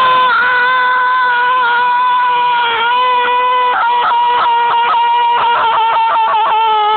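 A drunk man screaming one long, loud, high-pitched yell at a nearly steady pitch, his voice wavering and breaking up in the second half.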